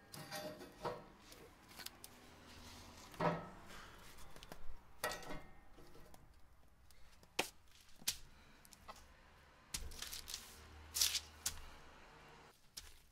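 Split pecan logs being set by hand onto a steel fire grate in a smoker firebox: a series of separate hollow wooden knocks and clunks, one with a short ring about three seconds in.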